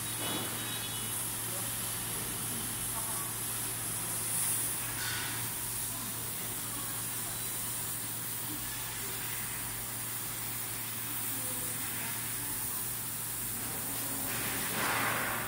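CNC fiber laser cutting 8 mm carbon steel plate: a steady hiss of the gas jet from the cutting head and the molten cut, over a steady low hum. The hiss swells louder briefly about four seconds in and again near the end.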